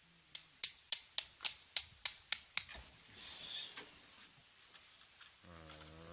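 Hammer driving a metal tent peg: about nine quick ringing strikes, a little over three a second, then the hammering stops.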